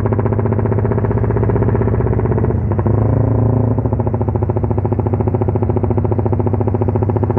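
Motorcycle exhaust on a Juken 5 ECU's "helicopter" sound setting, the engine held on the programmed cut so the exhaust chops in a fast, steady beat like a helicopter rotor. There is a brief dip about two and a half seconds in.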